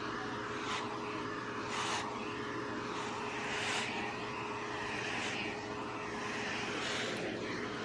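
Electric pet grooming clipper with built-in vacuum running: a steady motor whine with one constant tone over a rushing hiss that swells and eases now and then.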